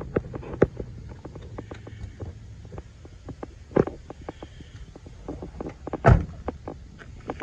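A pickup's rear crew-cab door shutting with a heavy thud about six seconds in, after scattered small clicks and knocks of handling and footsteps.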